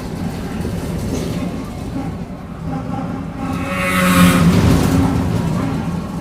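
Mercedes-Benz OF-1722M city bus heard from inside while driving: its engine and drivetrain run with the growl of the rear differential, a sign of worn differential gears. About four seconds in there is a louder rush of noise that fades over the next second.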